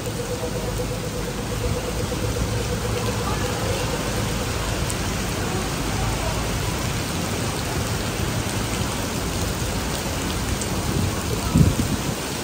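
Heavy rain pouring onto paved street and pavement: a steady, even hiss of downpour on wet stone. A brief low thump comes near the end.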